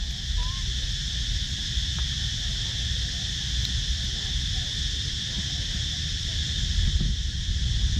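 Steady high-pitched drone of insects in the trees, with an irregular low rumble underneath.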